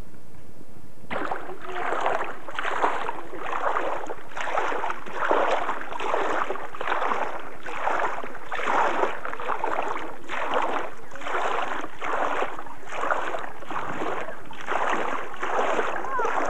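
Shallow sea water splashing and sloshing in a steady rhythm, close to two splashes a second, starting about a second in.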